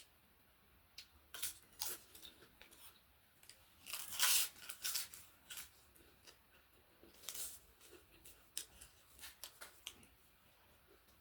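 Close-up eating sounds: irregular crisp crackles and crunches of chewing and handling crunchy food, loudest and densest about four to five seconds in.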